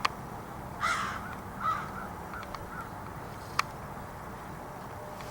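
A crow giving two short calls about a second in, then a few fainter ones. Two sharp clicks, one at the very start and one a little past the middle.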